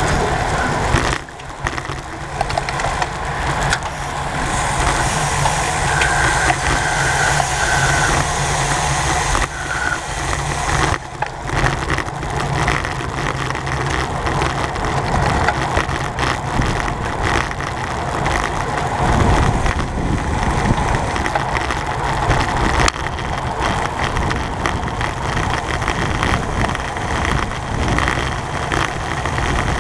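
Steady wind rush and tyre rumble on a bicycle-mounted camera's microphone while riding in a road race bunch, with a few short high squeaks about six to eight seconds in.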